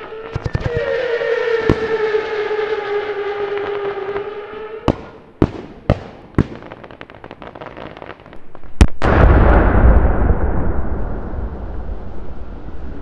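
Consumer fireworks going off: several sharp bangs spaced over the first nine seconds, then a loud, continuous rumbling barrage from about nine seconds in. For the first five seconds a steady, siren-like wail sounds underneath the bangs.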